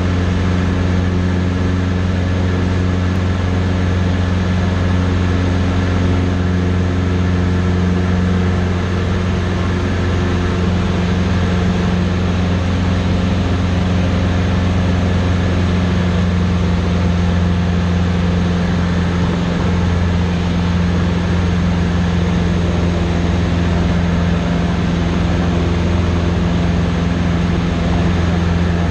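Cessna 150's Continental O-200 four-cylinder piston engine and propeller running steadily at an unchanging pitch, heard from inside the small cockpit.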